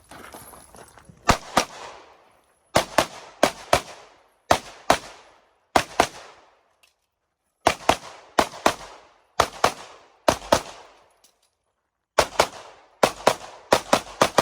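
Open-division competition pistol fired rapidly, mostly in quick pairs (double taps) about a third of a second apart, with short pauses between groups as the shooter moves from target to target: about two dozen shots.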